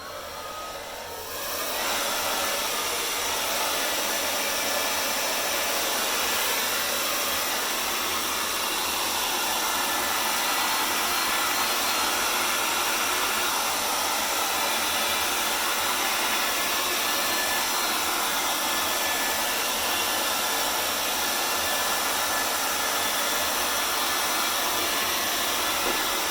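Hand-held hair dryer blowing steadily, used to push poured acrylic paint across a panel in a Dutch pour. It builds up over the first two seconds, then runs at an even level.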